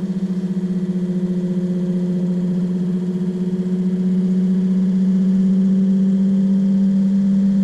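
Electric trolling motor (24 V, 86 lb thrust, with freshly fitted brushes) running on 12 volts with a steady electric hum. It gets louder about four seconds in as the brush timing is shifted off centre to the other end.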